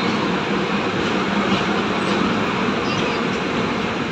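Steady rumble and hiss of a passenger train rolling past on the next track.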